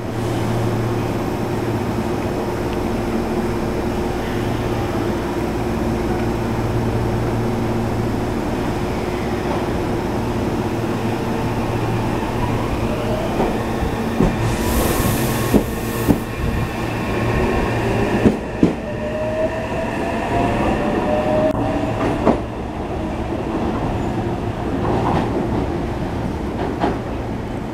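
Meitetsu 2200 series electric train pulling out: a steady hum while it stands, then a brief hiss about 15 seconds in, and its VVVF inverter and traction motors whining up in pitch as it gathers speed, with the wheels knocking over rail joints.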